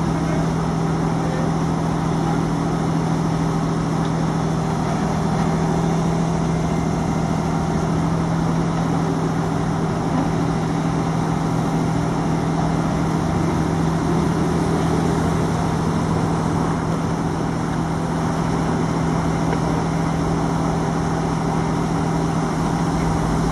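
A vehicle engine idling steadily, a constant low hum with no change in speed.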